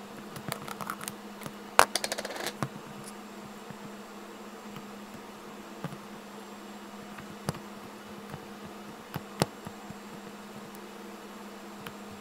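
Homemade slime with real kinetic sand mixed in, being poked and stretched in a plastic tub. A quick run of sticky clicks and pops in the first few seconds is followed by a few single pops, over a steady low hum.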